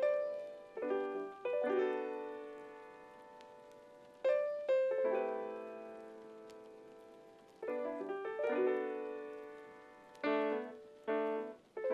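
Background piano music: slow chords struck every second or two, each left to ring out and fade.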